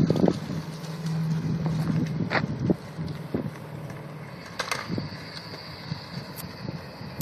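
1996 Ford Thunderbird's engine running steadily with a low hum, dropping in level about two and a half seconds in, with a few scattered knocks.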